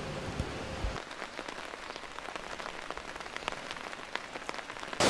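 Rain falling, with the patter of many separate drops hitting surfaces.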